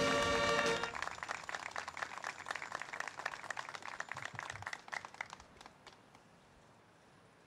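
A military brass band's held final chord cuts off about a second in, followed by a few seconds of scattered applause from the crowd that dies away.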